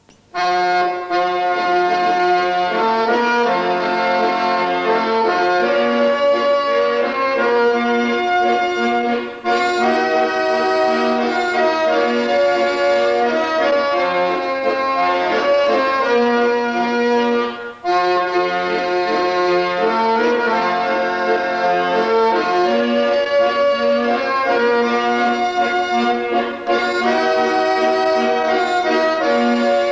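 Piano accordion playing a lively folk-dance tune, in phrases with brief breaks roughly every nine seconds.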